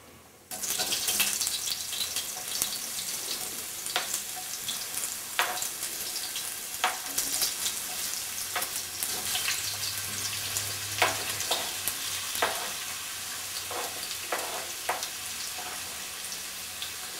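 Cubed potatoes sizzling as they go into hot oil with coriander and nigella seeds: a steady frying hiss with many sharp crackles and pops, starting about half a second in.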